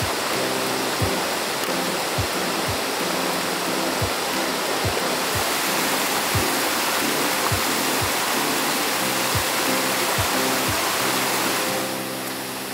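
Background music of sustained chords with a soft low beat, over a steady rush of flowing water like a stream. The water noise drops a little near the end.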